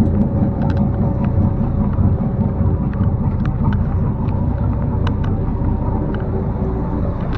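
Charter boat's engine running steadily under way, with scattered light clicks and knocks.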